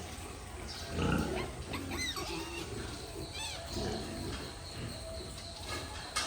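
Pigs grunting in low, rough bursts, with a few short high-pitched calls about two and three and a half seconds in.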